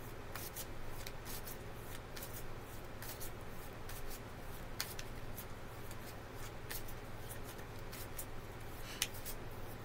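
A tarot deck being shuffled by hand: soft, irregular card flicks and taps, over a low steady hum.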